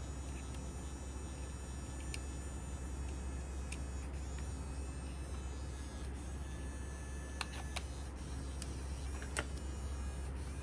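Small plastic clicks and taps over a steady low hum, from the toy projector's scene-changing mechanism being worked. The clicks come a few at a time and cluster in the second half; the loudest is near the end.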